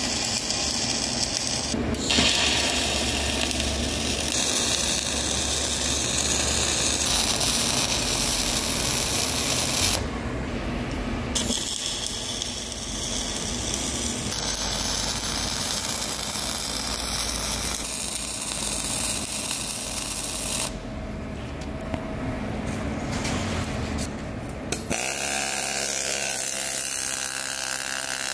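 MIG welding arc on a steel bail-arm joint, run on solid wire under 80/20 argon–CO2 shielding gas: a steady sizzling crackle that breaks off briefly about ten seconds in and again around twenty-one seconds as the arc is stopped and restarted.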